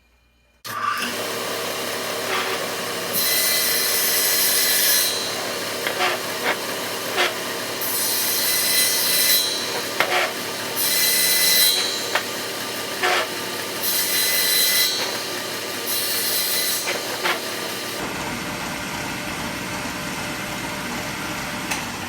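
Table saw running with its blade set just above the table, while a chair leg is rotated over it in about five short passes that shave the end of the high leg. Each pass adds a brief, hissing cut over the steady sound of the saw.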